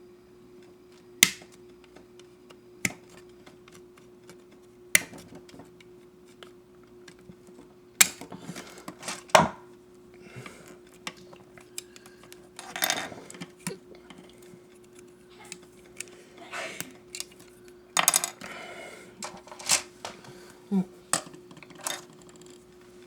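Hard plastic model-kit parts and runners being handled, giving sharp clicks and clatters at irregular intervals with some rustling between them, over a steady faint hum.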